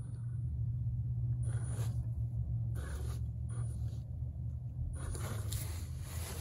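Electric drivetrain of an Element RC Enduro Sendero scale crawler running with a steady low hum as it climbs loose dirt. Several short bursts of tires scrabbling and scraping in the soil come through, the longest near the end.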